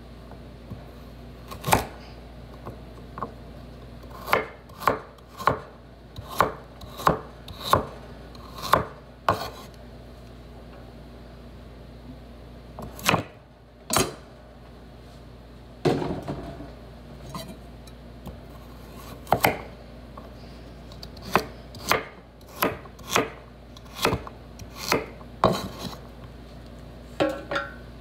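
Kitchen knife chopping carrots on a wooden cutting board: sharp, irregular knocks of the blade through the carrot onto the wood, about one or two a second, with a pause of a few seconds near the middle.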